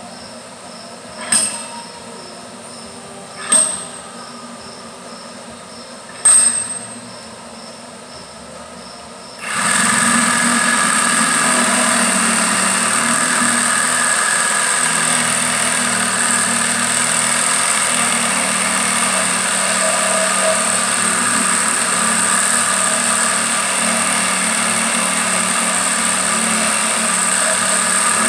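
Three sharp knocks a couple of seconds apart, then a loud, steady workshop machine starts abruptly about ten seconds in and keeps running, with a strong high hiss over it.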